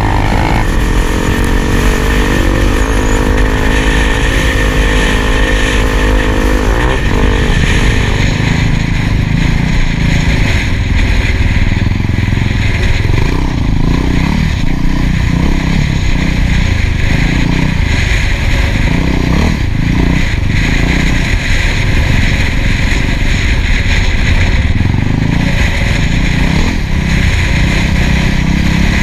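Single-cylinder four-stroke trail bike engine running under way, first holding a steady note, then rising and falling with the throttle from about seven seconds in, over wind rushing on the camera microphone.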